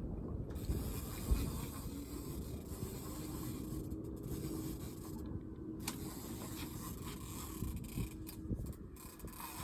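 Wind buffeting the microphone on an open boat: a steady low rumble, with a faint steady hum in the middle.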